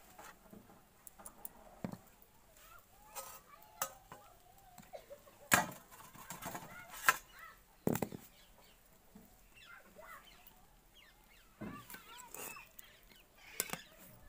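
Chickens clucking, mixed with scattered clinks and knocks of steel cooking utensils being handled.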